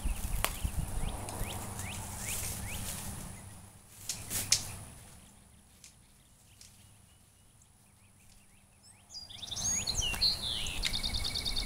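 Outdoor ambience while poultry netting is handled: light rustling and a few clicks, with one sharp click about four and a half seconds in. A songbird sings near the end, with chirps and then a quick trill.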